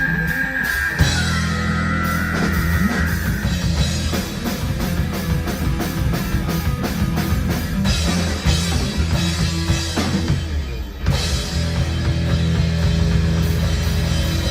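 Live heavy metal band playing, with drum kit, guitar and bass. A held high note bends down over the first two seconds, and the band drops out briefly near eleven seconds before coming back in.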